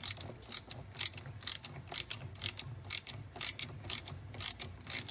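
Hand ratchet clicking steadily, about four clicks a second, as it threads the pressure-relief-valve end cap into an aluminium oil pump housing against the relief spring.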